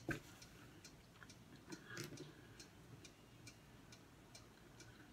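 Faint, steady ticking, about two ticks a second, in a quiet room, with a couple of soft chewing sounds near the start and about two seconds in.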